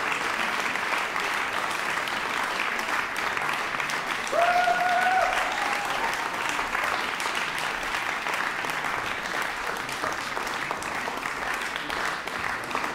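Concert audience applauding steadily after a jazz duo's performance. One held call from the audience rises over the clapping about four seconds in.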